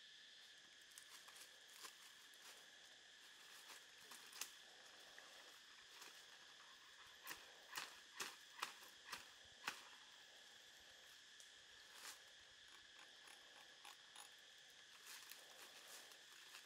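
Faint, steady insect drone in the forest, with scattered sharp crackles and snaps of dry leaves and twigs underfoot and underhand, the loudest a quick run of about five snaps a little past halfway.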